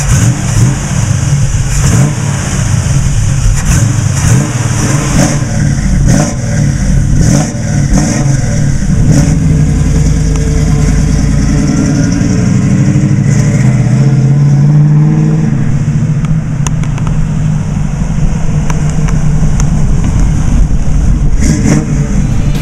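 1968 Chevrolet Camaro's numbers-matching 327 V8 running and being revved several times, then pulling away with the engine note climbing as the car accelerates about halfway through.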